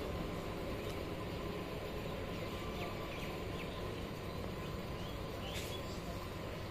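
Steady low rumble of an EMU local train moving away, with a few faint bird chirps.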